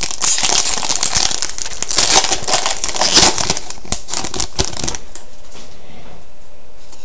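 The wrapper of an Upper Deck SPx hockey card pack being torn open and crinkled. It crackles densely and stops about five seconds in.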